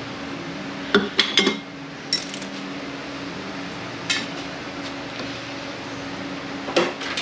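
Metal transmission parts and hand tools clinking and clanking as they are handled: a quick cluster of knocks about a second in, single clinks near two and four seconds, and more clatter near the end, over a steady low hum.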